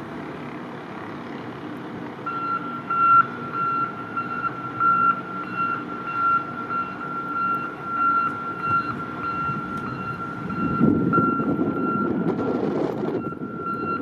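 Reversing alarm on a heavy snow-clearing vehicle beeping repeatedly, starting about two seconds in, over the low rumble of its diesel engine, which grows louder for a few seconds near the end.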